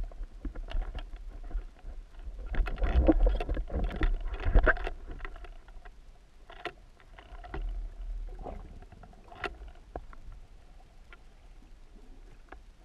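Underwater sound picked up through a waterproof camera housing: a low rumble of moving water with scattered sharp clicks and knocks. It is loudest and busiest for a couple of seconds near the start, then settles to a faint rumble with occasional clicks.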